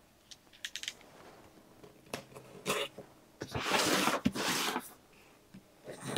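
Box cutter cutting through the packing tape on a cardboard box: a few quick clicks, then short rasping strokes and a longer, louder scraping cut in the middle.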